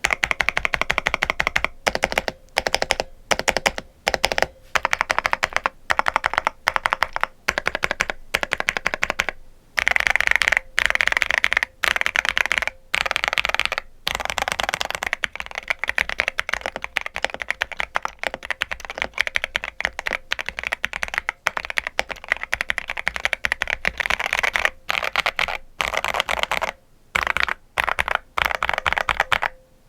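Epomaker Shadow-S mechanical keyboard with stock Epomaker Mulan linear switches and PBT keycaps being typed on fast and continuously, a dense run of keystrokes broken by a few short pauses. Smooth and thocky.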